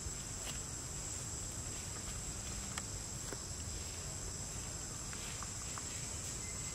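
Steady high-pitched insect chorus, with a few faint crackles and ticks of dry leaf litter as a baby macaque moves over it.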